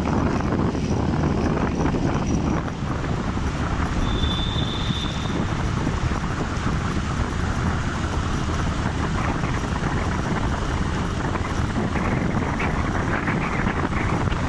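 Motorcycle on the move: steady wind rush over the microphone mixed with the bike's engine and tyre noise. A brief high-pitched tone sounds about four seconds in.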